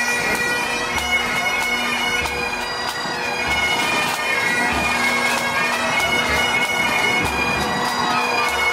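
Pipe band playing: bagpipes sounding a tune over their steady drone, with drums beating underneath.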